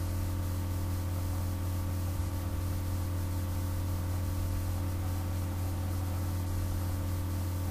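Steady low electrical hum under an even hiss: the background noise of the recording setup.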